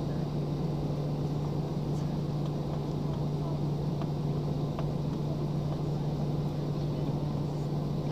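Airliner cabin noise from a window seat over the wing: the twin jet engines idling while the aircraft taxis, a steady drone with a constant low hum.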